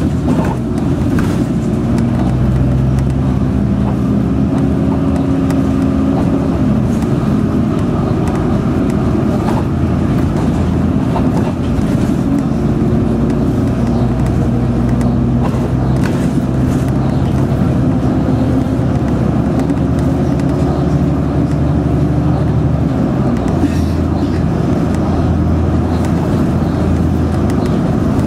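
City bus engine and road noise heard from inside the passenger cabin while driving. It is steady, and the engine's hum shifts in pitch as the bus changes speed, most clearly about twenty-three seconds in.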